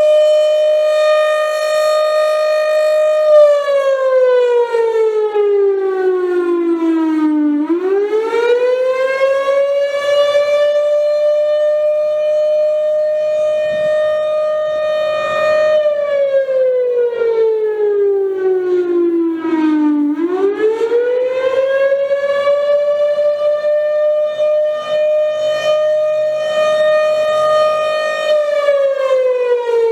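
Federal Thunderbolt 1000 civil defense siren sounding the attack signal: a loud wail that holds one pitch for several seconds, slides down over about four seconds, then climbs back up. It falls three times and rises twice.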